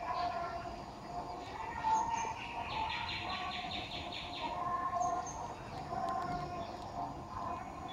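Birds calling, with wavering calls throughout and a rapid pulsing trill starting about three seconds in and lasting nearly two seconds.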